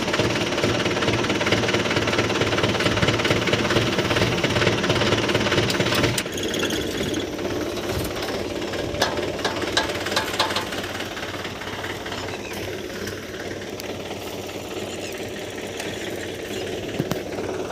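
Mahindra 575 DI tractor's four-cylinder diesel engine idling with a fast, even knock. About six seconds in it becomes quieter, and a few sharp metallic clicks come over it.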